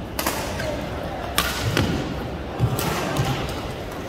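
Badminton rackets striking the shuttlecock in a rally: three sharp hits about a second and a quarter apart, with dull thuds of players' shoes on the court between them.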